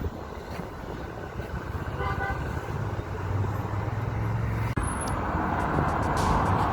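Steady low rumble of road traffic, with a short tone about two seconds in. About five seconds in the sound breaks off sharply and gives way to a louder rushing hiss.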